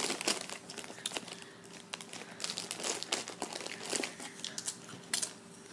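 A foil chip bag of hot Doritos crinkling in irregular rustles as hands go in and out of it for chips.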